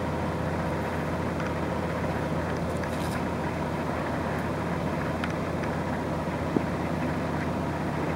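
Steady low background rumble with a faint hum, and a single soft tick about six and a half seconds in.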